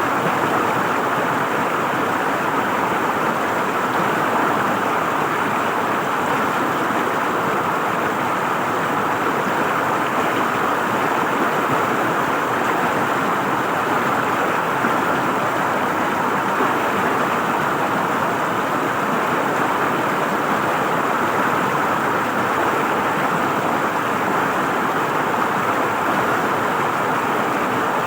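River water flowing and gurgling, a steady even rush with no change in level.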